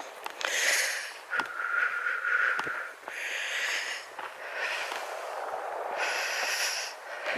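A walker's heavy breathing close to the microphone, a breath about every second and a half, one of them with a whistling wheeze. A couple of soft footfalls on the path.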